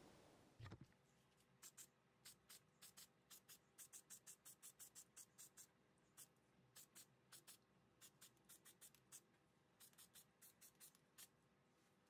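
Aerosol spray-primer can: a spray hiss cuts off at the start, then a soft knock. After that come runs of sharp, light clicks, about five a second, with short pauses, like the can's mixing ball rattling as it is shaken.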